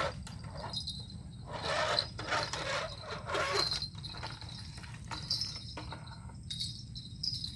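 Rustling and handling noise in several bursts, loudest in the first half, over a steady low rumble.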